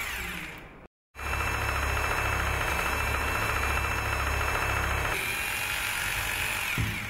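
Bosch GBH 2-18 RE rotary hammer drill running, boring 8 mm holes into a tiled wall. There is a short burst, a brief break about a second in, then steady drilling with a high whine. The drilling changes about five seconds in and winds down with a falling whine near the end.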